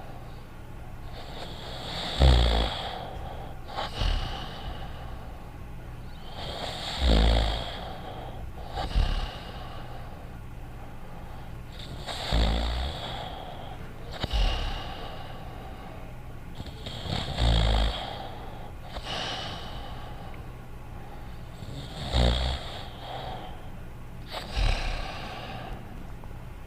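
Animated cartoon dog snoring in its sleep in a slow, even rhythm: five snores about five seconds apart. Each is a loud breath drawn in, followed about two seconds later by a shorter, quieter breath out.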